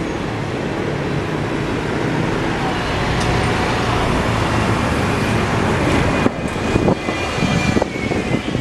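Single-deck diesel buses passing close by on a city street: engine running and tyre noise swelling as a bus goes by, with a faint high whine and uneven buffeting in the last couple of seconds.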